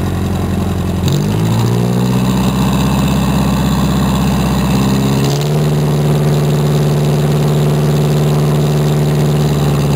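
Jeepney's diesel engine running loudly; its speed picks up about a second in, holds steady, then changes to a new steady pitch about five seconds in.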